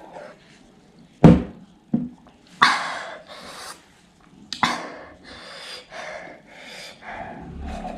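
A person breathing hard in sharp, hissing gasps and pants, the burn of ghost-pepper-hot noodles in the mouth. A single thump comes about a second in.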